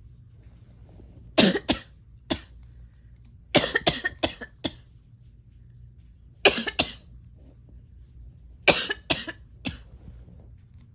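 A person coughing in four short bouts of several coughs each, spread a few seconds apart.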